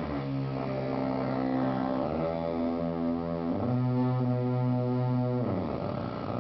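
Palmelectronics circuit-bent noise box played through a circuit-bent effects unit, giving a sustained buzzy electronic drone with many overtones. It jumps to a new pitch every couple of seconds, drops to a lower note a little past halfway, and near the end a swooping sweep leads into the next tone.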